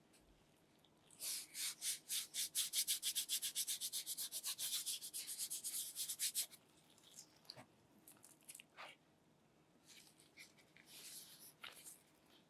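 Rapid back-and-forth rubbing by hand, about eight scratchy strokes a second for roughly five seconds, then a few light rustles and clicks.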